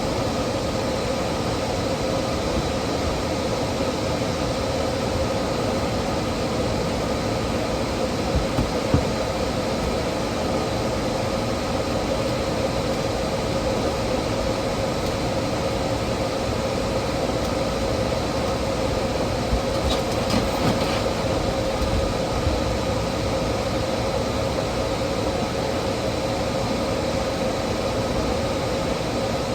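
A steady mechanical drone with a constant hum, like a large fan or air-handling unit running. A few short knocks stand out briefly, once about a third of the way in and again past the middle.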